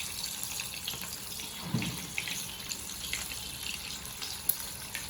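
Gram-flour cheese pakoda batter frying in hot oil: a steady sizzle with fine crackling, and a brief low thud about two seconds in.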